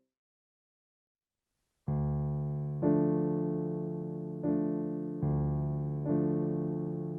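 Background music of slow keyboard chords, each starting sharply and fading, with a new chord about once a second. It comes in about two seconds in, after complete silence.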